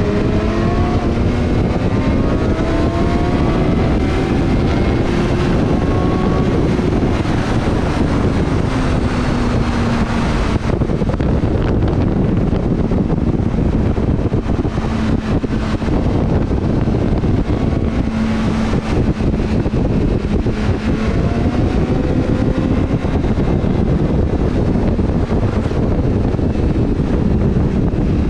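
Motorcycle engine running at road speed under heavy wind rush, its pitch rising and falling as the throttle is rolled on and off.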